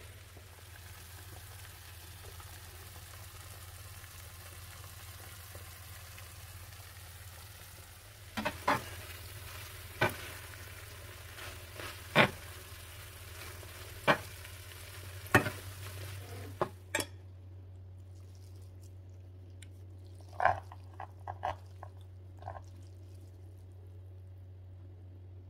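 Spaghetti sizzling steadily in a nonstick frying pan. From about eight seconds in, kitchen tongs toss it, clacking sharply against the pan every second or two. The sizzle stops suddenly partway through, and a few lighter clacks of tongs on the pan follow.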